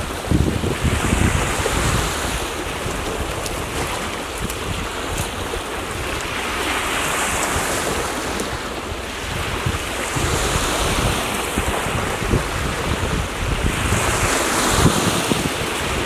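Small waves washing onto a pebble beach, swelling and fading every few seconds, with wind buffeting the microphone.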